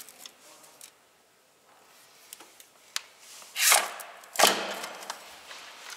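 Piston and ring compressor knocking into a cylinder liner as the piston is driven home: a few light metal clicks, then two sharp knocks with a short ring, about three and a half and four and a half seconds in.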